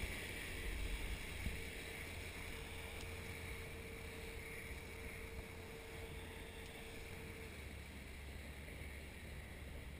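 Steady rush of wind over the camera of a parasailer being towed aloft, with the tow boat's motor running faintly beneath it. A faint steady hum runs through most of it and stops near the end.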